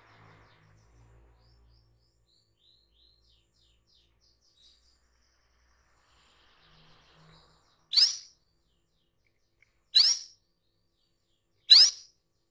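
Female canary calling: a little faint, soft twittering, then three loud, short, sharp calls about two seconds apart, the calls a hen gives to draw a male.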